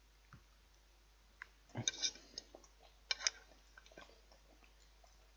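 Knife and fork clicking and scraping on a plate in two short, faint clusters about two and three seconds in, with smaller clicks and chewing between.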